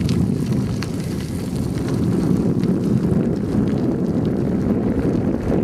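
Wind buffeting the microphone of a camera carried along on a moving bike: a loud, steady low rumble.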